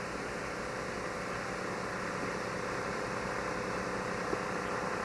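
Small gasoline engine of a suction dredge running steadily under a wash of noise, with a small click about four seconds in.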